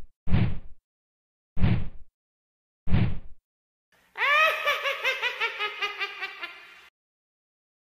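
Four short, deep hits about a second apart, then about three seconds of high-pitched cackling laughter, a quick run of 'heh-heh' syllables: a witch's cackle sound effect.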